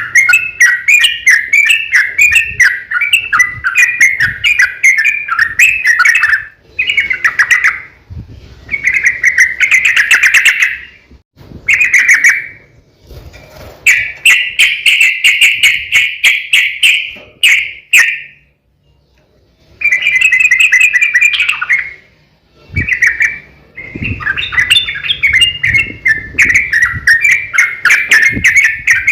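Yellow-vented bulbul (trucukan) singing long runs of rapid, bubbly chattering phrases, broken by short pauses and one brief silence past the middle.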